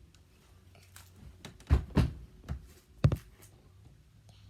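A few dull thumps, about four in a second and a half, over a faint low hum.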